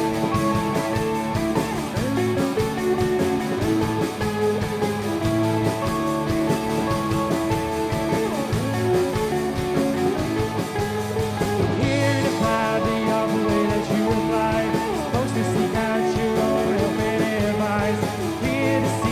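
Indie pop/rock band playing an instrumental passage of an original song: guitars over bass and drum kit.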